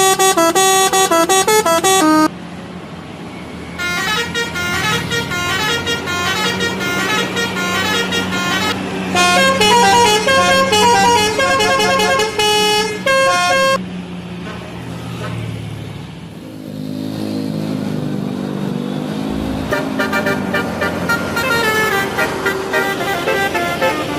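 Indonesian buses sounding telolet horns: multi-tone air horns playing quick melodic tunes, note after note, over a bus engine. The tune plays to about two seconds in and again from about four seconds to fourteen, then gives way to engine and road noise before coming back more faintly near the end.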